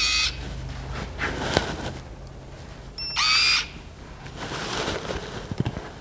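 RFID cabinet lock beeping as a key card is read: one short electronic beep at the very start and another about three seconds later, with a couple of faint clicks in between.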